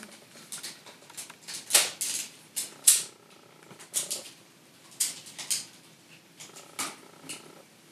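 Hard plastic parts of a DX Condor Phone toy being handled and clipped together during its transformation into bird form: scattered, irregular clicks and light knocks, the sharpest about three seconds in.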